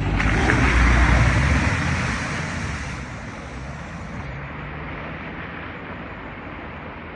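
A vehicle driving through floodwater: engine rumble and the rush of water thrown up, starting suddenly, loudest about a second in, then fading into a steady rushing noise.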